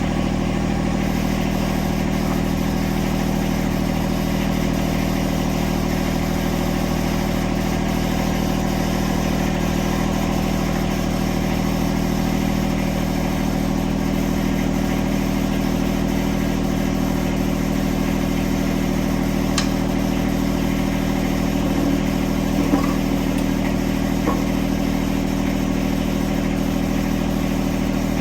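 John Deere 1026R compact tractor's three-cylinder diesel engine running at a steady idle, with a few light metallic clinks past the middle.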